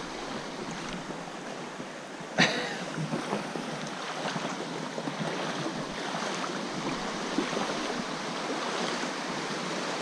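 Water rushing steadily over the rocks of a shallow creek rapid, with one sudden sharp knock about two and a half seconds in.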